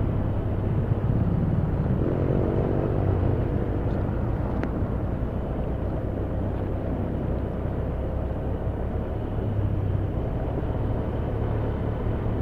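Motorcycle running at road speed: a steady low engine and road rumble, with an engine note rising briefly about two seconds in.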